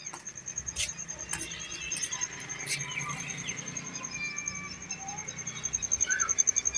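Evening outdoor ambience: an insect's steady, rapid, high-pitched trill throughout, with short scattered bird chirps and a few faint clicks.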